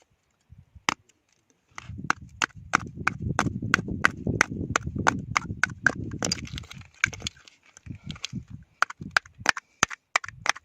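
Hard shell-on-rock knocking: a tool striking and prying oysters off the rocks in a quick irregular series, about three to four sharp knocks a second, with a low rumble under the busiest stretch.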